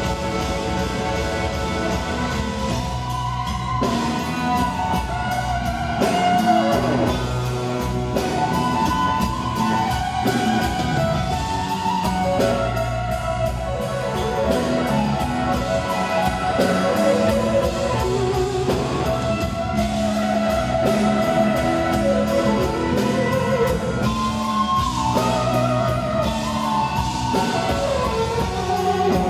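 Live blues-rock band: a Les Paul-style electric guitar plays a solo of wavering, bent notes over a drum kit and the rest of the band.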